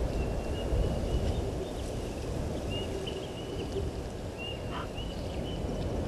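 Outdoor wind rumbling on the microphone, with a thin high note from an animal coming and going in short broken stretches above it.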